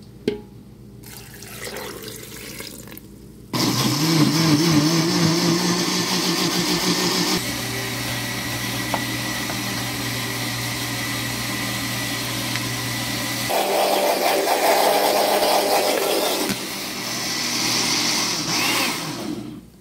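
Countertop blender starting suddenly about three and a half seconds in and running, liquefying spinach leaves with water. Its tone shifts a few times as it runs, and it stops near the end.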